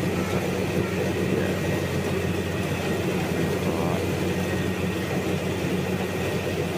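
Combine harvester's diesel engine and machinery running steadily under load, with an even low hum.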